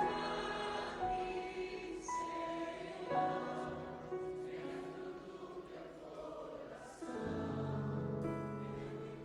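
Brazilian gospel worship song in a soft passage: sung vocals over held keyboard chords, with no steady drum beat.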